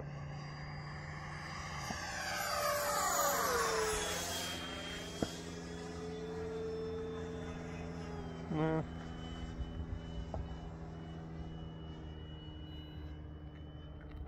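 An 80 mm electric ducted fan model jet (Avanti) flying a pass. Its high fan whine swells and drops in pitch as it goes by, about three seconds in, then runs on as a steadier, fainter whine. A short buzzy burst comes about eight and a half seconds in.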